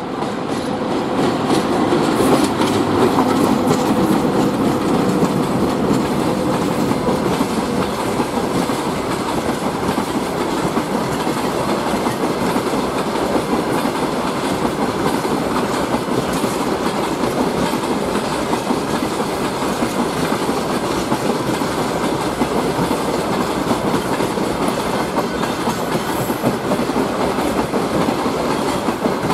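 A VL80K electric locomotive passes at the head of a freight train, with a steady hum that fades after several seconds. A long string of loaded open freight wagons follows, rolling past with the wheels clattering steadily over the rail joints.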